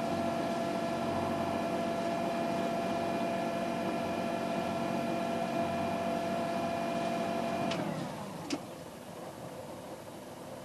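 A sailing yacht's inboard diesel engine running steadily in reverse gear as the boat backs out of its berth. About eight seconds in, the sound drops in level with a short fall in pitch, followed by a single click.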